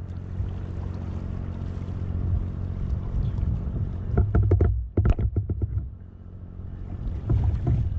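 Water sloshing and knocking around a kayak hull, heaviest in a cluster of sharp strokes about four to five seconds in, over a steady low hum and wind on the microphone.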